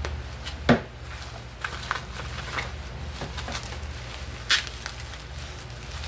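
Packaging being handled and opened by hand: scattered clicks and crackles with two sharper knocks, one under a second in and one about four and a half seconds in, over a steady low hum.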